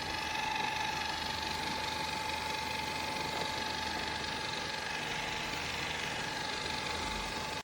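Narwal Freo X Plus robot vacuum's suction motor running, a steady whine over the rush of air.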